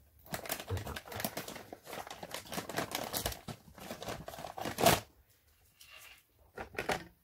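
Thin clear plastic stencil sheet crinkling and crackling as it is handled, with one sharper crack about five seconds in, then a few short, lighter rustles near the end.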